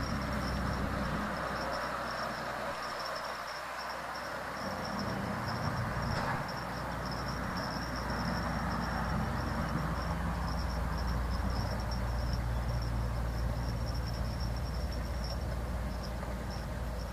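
Insects trilling in a steady, high-pitched continuous drone, over a low steady rumble.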